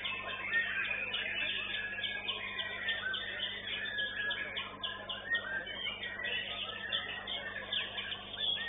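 White-rumped shama (murai batu) singing in a rapid, unbroken stream of varied chirps and whistles, with other birdsong overlapping it. A steady low hum runs beneath.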